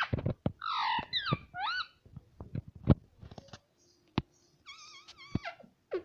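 Indian ringneck parakeet making warbling, gliding chatter calls at its reflection, then a run of sharp clicks with the loudest about three seconds in, and another wavering call near the end.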